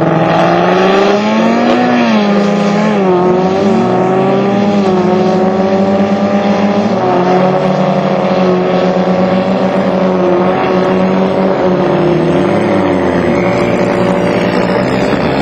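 Vehicle engine running, its pitch rising and dipping a few times in the first few seconds, then holding mostly steady.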